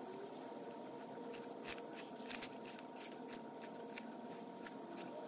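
Sulcata tortoise biting into romaine lettuce: quick, irregular crisp crunches, several a second.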